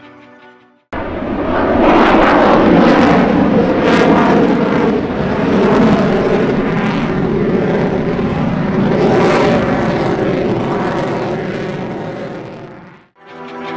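F-16 fighter jet's engine noise as it flies past overhead. The sound is loud and swells and fades in sweeping whooshes as the jet manoeuvres. It cuts in abruptly about a second in and cuts off near the end.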